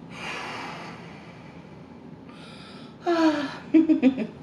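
A woman's breathing: a long breathy exhale at the start and another breath about two seconds later, then a few short murmured vocal sounds near the end.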